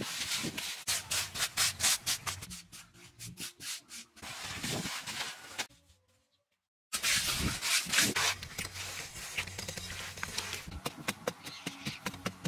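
Hand trowels scraping and smoothing wet cement mortar on a pond's walls: repeated rasping strokes, broken by a second of silence about six seconds in. Near the end, quicker clicks of a metal tool chipping into dry, crumbly earth.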